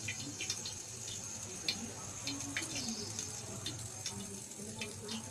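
Hands squishing and rubbing raw chicken pieces with lemon juice and spice powders in a glass bowl: soft wet squelching with scattered sharp little clicks, over a faint low steady hum.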